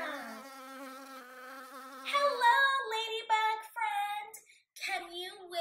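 A buzzing, insect-like flying sound, wavering in pitch, for about the first two seconds, for a ladybug flying in. Then a woman's voice in short phrases.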